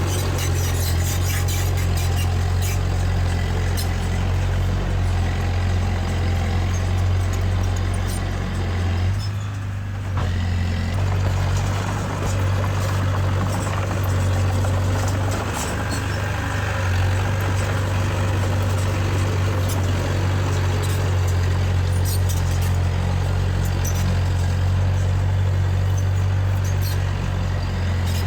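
Heavy diesel earthmoving machinery engine running steadily under work, a deep continuous hum with a brief dip about ten seconds in.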